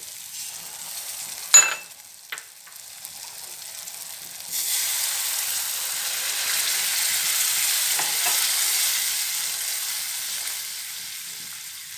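Water poured into a hot kadhai of masala paste fried in oil until the oil has separated, setting off a sudden loud hissing sizzle about four and a half seconds in that slowly dies down. Before it there is a quieter frying sizzle, with a sharp knock near the two-second mark.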